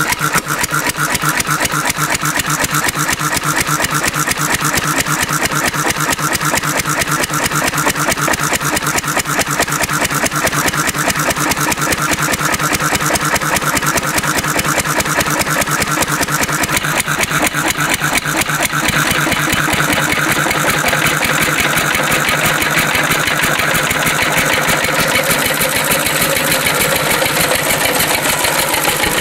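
Antique Cushman Cub single-cylinder, throttle-governed stationary engine running steadily on paraffin lamp oil, a rapid even firing, with its needle valve turned rich so that it runs smoky.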